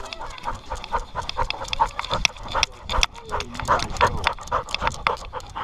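A dog panting rapidly, several breaths a second, heard close up through a camera mounted on its own collar.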